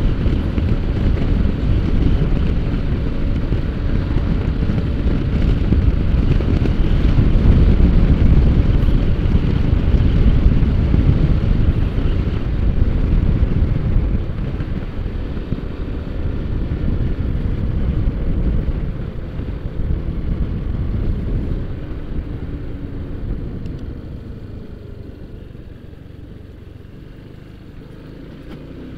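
Wind rushing over the microphone of a Honda ADV150 scooter at speed, with its engine running underneath. The rush fades over the last several seconds as the scooter slows down, leaving the engine more audible.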